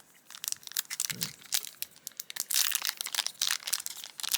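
Foil booster-pack wrapper crinkling and crackling as it is handled, with the crackles sparse at first and coming thick and fast from about halfway.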